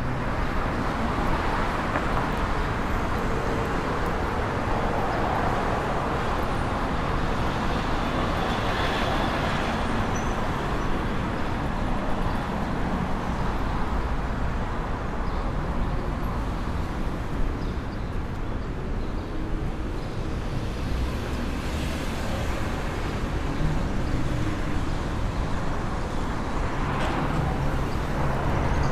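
City street traffic: a steady, even wash of passing cars and road noise.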